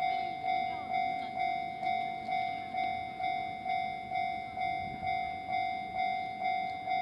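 Japanese railway level-crossing warning bell ringing its repeated electronic clang, about two strikes a second, each dying away before the next, over a low rumble of rail noise.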